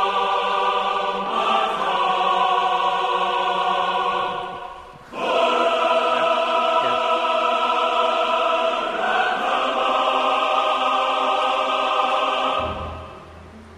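Background music: a choir singing long held chords. The chord changes a few times, the music dips briefly about five seconds in, and it fades out near the end.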